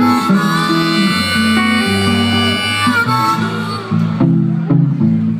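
Live blues band playing an instrumental break between sung verses. Long held lead notes ring over a repeating bass figure, giving way to sharply picked guitar notes about four seconds in.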